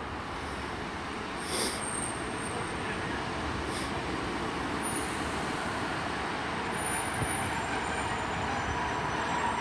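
British Rail Class 150 diesel multiple unit moving through the station: a steady engine and wheel rumble that grows slightly louder, with a few brief high squeals.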